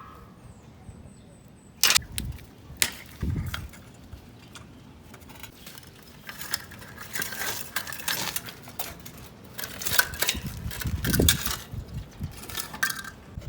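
Scattered metallic clinks and knocks of tools and bicycle parts being handled. There are a few sharp knocks about two to three seconds in, then a busier run of clicks from about six seconds on.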